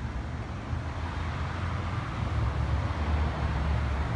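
Steady traffic noise from cars on a busy multi-lane city road, a low rumble that swells a little in the second half.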